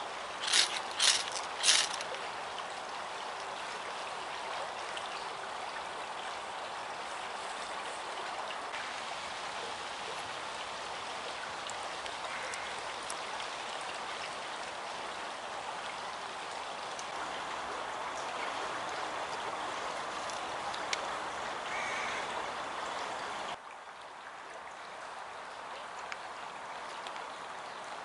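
Three quick, sharp scrapes of a fire steel struck with a knife over tinder in the first two seconds, then the steady rush of stream water. The water sound drops suddenly in level about four seconds before the end.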